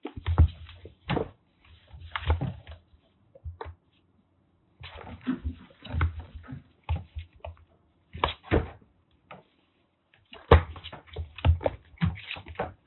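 Kittens at play: irregular thumps, knocks and scuffles in quick clusters, with short pauses between.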